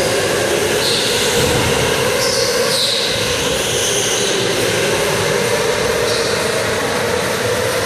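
Several electric go-karts racing around an indoor track, their motors whining high and gliding up and down in pitch as karts pass, over a steady drone.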